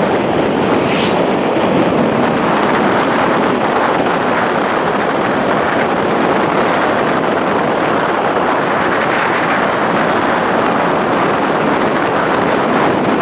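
Steady, loud rush of wind over the microphone during a fast downhill run on inline skates at over 60 km/h.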